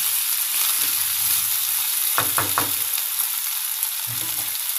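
Diced pumpkin sizzling in oil in a kadai on the stove, a steady hiss. A little after halfway, three quick clicks.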